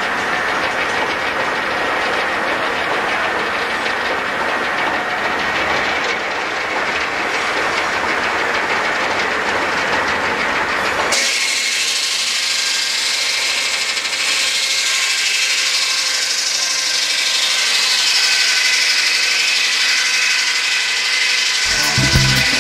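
Steam-powered sawmill running while the next board is sawn from a log on the head-saw carriage: a steady, loud mix of hiss and machine rumble. About halfway through it turns more high-pitched and hissing, and music comes in near the end.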